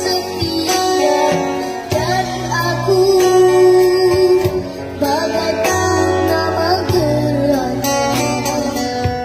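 A young boy singing a slow ballad into a microphone, accompanied by an acoustic guitar.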